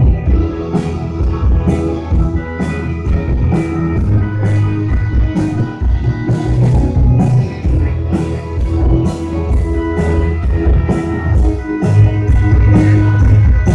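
Rock band playing live: electric guitars, bass and drum kit with a steady drum beat, loud in the hall.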